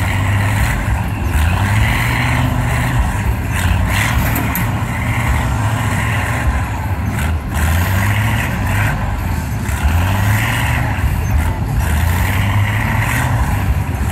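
Engine of a doodlebug pulling tractor running loudly and steadily, its pitch rising and falling a little.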